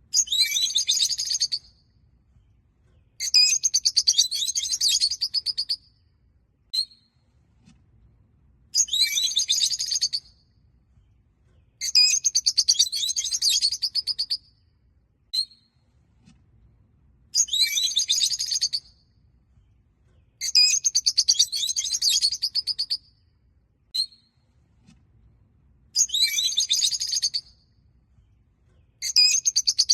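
Peach-faced lovebirds (Agapornis roseicollis) chirping: bursts of rapid, high-pitched chattering chirps about two seconds long, coming about every three seconds, with a single sharp chirp in some of the gaps.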